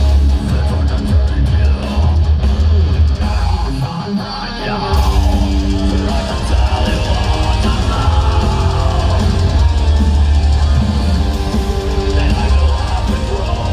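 Heavy metal band playing live, heard from the crowd: distorted electric guitars over heavy drums. The low drums drop out for about a second a third of the way in, then come back.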